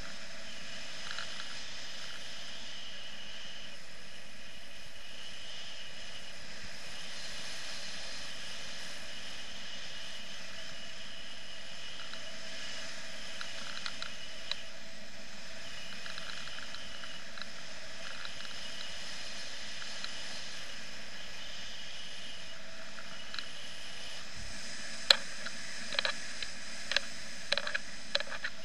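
Steady rush of airflow over the camera during paraglider flight, with a handful of sharp clicks or taps in the last few seconds.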